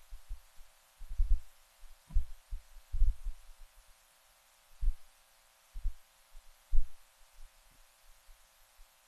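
Irregular dull, low thumps: a quick cluster at first, then single thumps about a second apart, one louder near the end.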